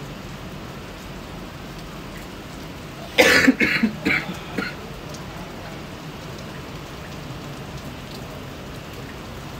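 Steady heavy monsoon rain pouring down. About three seconds in, a person coughs: one loud burst and then two smaller ones.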